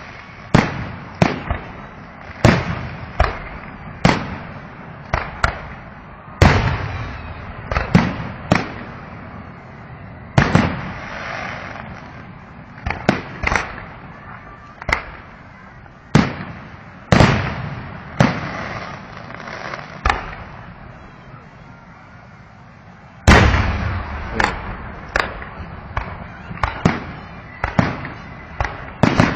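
Fireworks going off in a rapid, irregular barrage of sharp bangs, about one a second, each trailing off in a rumble. There is a brief lull about three quarters of the way through, then the loudest bang, followed by another quick run of bangs.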